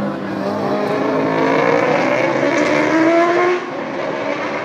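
Off-screen racing motorcycle engine revving higher and higher as it accelerates, then falling off abruptly about three and a half seconds in.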